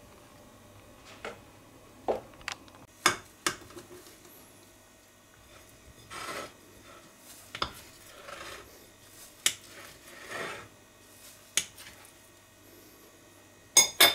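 Kitchen handling sounds: scattered sharp clicks and taps of utensils and dishes, with a few short scraping rubs. The loudest is a quick pair of clicks near the end.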